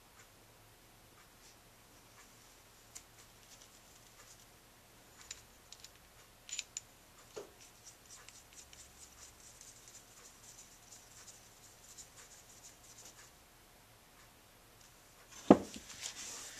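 Faint clicks and light scraping of small metal parts as a Honda Z50A carburetor is handled and fitted by hand, with one sharp knock about fifteen seconds in as the carburetor is set down on the bench.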